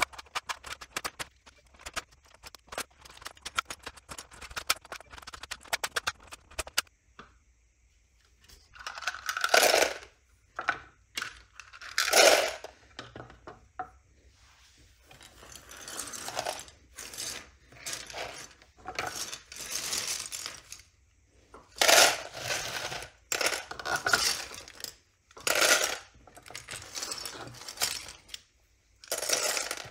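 Plastic keycaps being pried off a Microsoft Internet Keyboard and clicking onto a wooden bench in quick succession for the first few seconds. After that come separate bouts of clattering as handfuls of loose keycaps are scraped together on the wood and dropped into a plastic tub.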